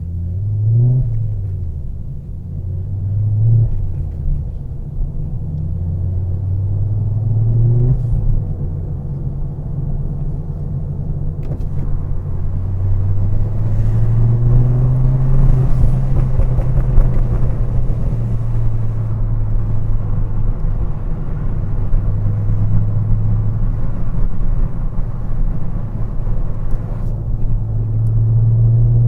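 Turbocharged car engine under way, its revs rising and falling a few times in the first eight seconds, then settling into a steady drone with road noise at a constant speed.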